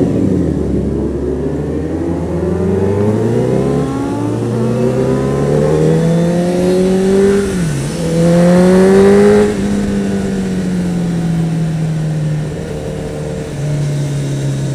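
Honda CBR1000RR Fireblade's inline-four engine pulling away. It runs low at first, then the note climbs, dips briefly at a gear change about halfway through, and rises again to its loudest. After that it falls away slowly as the throttle eases off.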